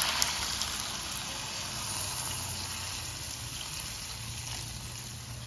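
Coconut milk poured into a hot wok of fried tofu and vegetables: the frying sizzle gives way to the sound of liquid pouring in, the hiss fading gradually as the milk covers the pan.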